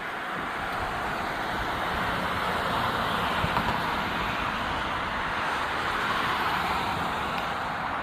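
Road traffic noise: a steady rushing of tyres that swells slowly over the first few seconds and then holds.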